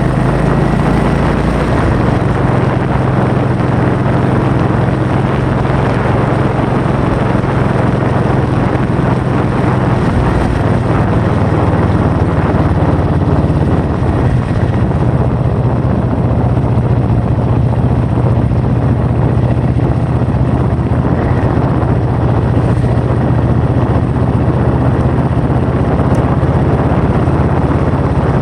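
Loud, steady wind noise buffeting the microphone, with a steady low drone beneath it throughout.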